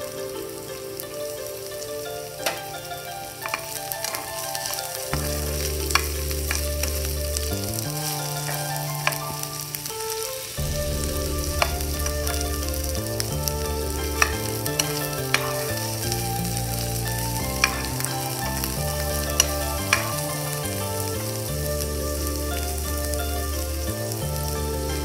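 Oil sizzling steadily as sliced onion, garlic, ginger and lemongrass fry in a pan, with sharp taps of a utensil against the pan every few seconds as they are stirred.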